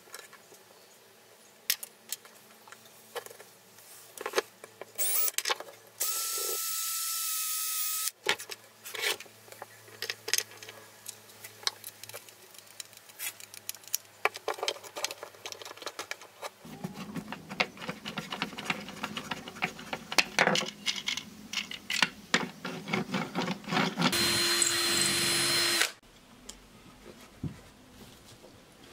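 Cordless drill run twice in short bursts of about two seconds, the second lower in pitch. Between the runs, wooden toy-car parts click and knock as they are handled and fitted.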